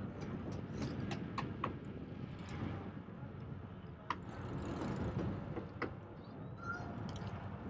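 Bicycle rolling along a paved path: a steady low rumble of tyres and wind, with scattered sharp clicks and rattles.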